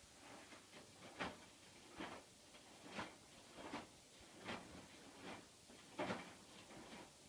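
Hotpoint washing machine early in its wash cycle, the drum turning with a faint swish repeating about every three-quarters of a second.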